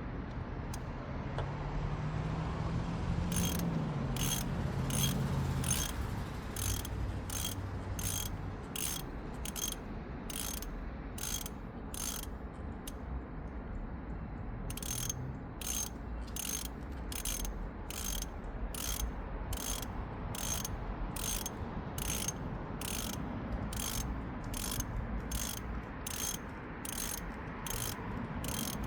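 Ratchet wrench clicking in even strokes, about two clicks a second, as the new transmission oil pressure switch is screwed in. The clicking starts about three seconds in and pauses for a couple of seconds near the middle.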